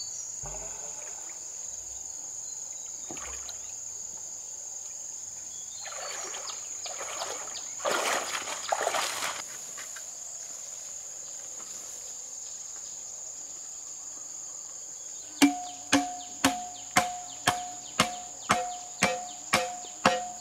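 Steady high-pitched drone of insects, with a stretch of rougher rustling noise about halfway through. About three-quarters of the way in, sharp strikes begin, about two a second, each with a short ringing tone; these are the loudest sound.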